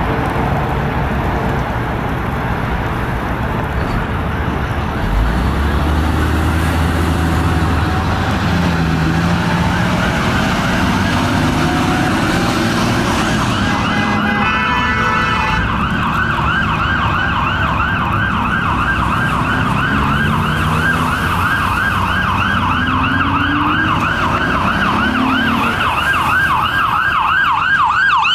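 Ambulance siren in a rapid yelp, getting louder from about a third of the way in as the 2006 Ford/Horton ambulance approaches through traffic. A horn blast comes about halfway, with road traffic and engines underneath.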